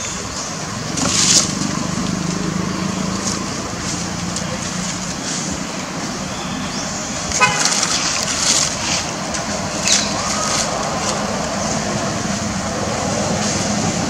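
Steady background traffic noise with a constant low engine hum. A short horn toot comes about seven and a half seconds in, with a few brief noises scattered through.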